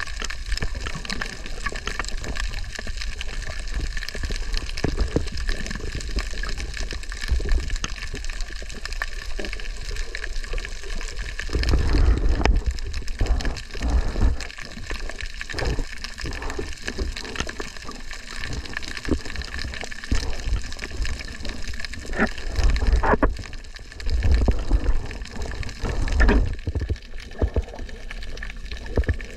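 Underwater sound picked up by a camera held under the sea: a continuous muffled rushing of water with deep rumbling surges, loudest about 12 seconds in and again in the last few seconds, and scattered sharp clicks.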